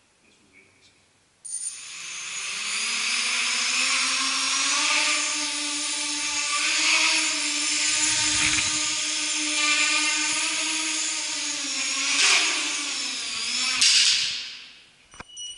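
250-size mini quadcopter's motors and propellers spinning up suddenly about a second and a half in and running with a steady buzzing whine while it flies, the pitch shifting a little, then winding down near the end.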